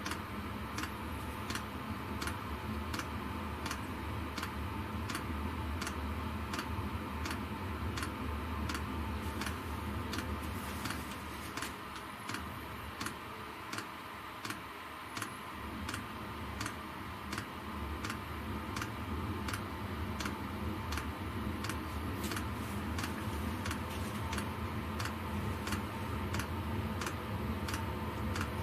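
Chinese 12 V diesel air heater during its first start-up, before it has lit: the fuel dosing pump ticks evenly, roughly two ticks a second, over the steady hum of the blower fan.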